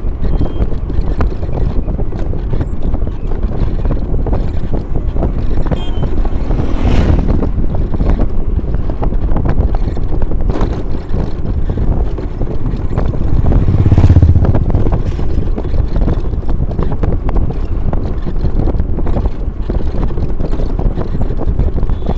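Wind rumbling and buffeting on the microphone while moving along a road, with a stronger gust about two-thirds of the way through.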